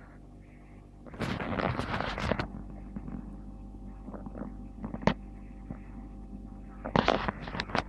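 Servis Gem M310 washing machine tumbling a wet bedding load over a steady hum. Bursts of swishing and sloshing come about a second in and again near the end, with a single sharp click around five seconds in.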